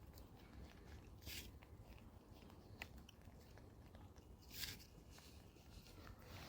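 Faint crunching and rustling of monkeys chewing food, with scattered small clicks and two short rustling bursts, about a second in and again past four seconds.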